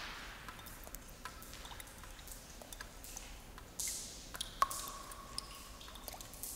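Irregular drips and small clicks with soft hissing swishes, and one sharp ping a little past the middle that rings on as a steady tone for about a second and a half.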